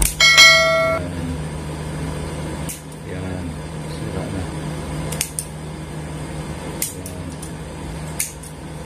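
Scissors snipping through knotted nylon fishing-net mesh: a few sharp snips, one every second or two. Right at the start a short electronic chime with a click, the sound effect of an on-screen subscribe animation, is the loudest sound. A steady low hum runs underneath.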